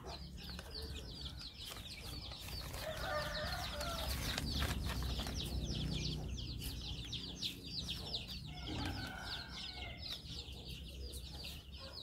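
Chickens clucking now and then over a steady, fast, high-pitched chirping, with a low rumble that is loudest about halfway through.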